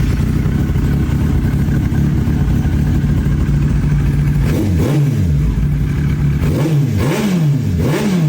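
Yamaha R6 sport motorcycle's inline-four engine idling just after a key start, then given several quick throttle blips in the second half, each revving up and dropping straight back to idle.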